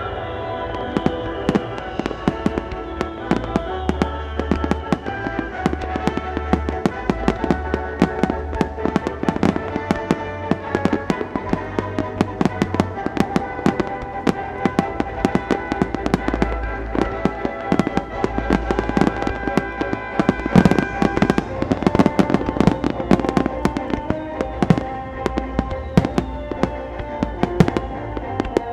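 Daytime starmine fireworks firing: a rapid, continuous barrage of sharp bangs from shells launching and bursting, densest and loudest about two-thirds through. Music plays steadily underneath.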